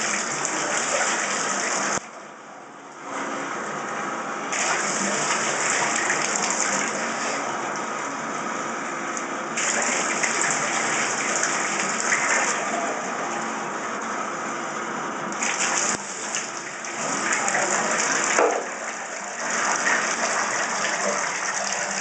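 Water running steadily into a bathtub while a dog is washed in it. The flow drops away for about a second, a couple of seconds in.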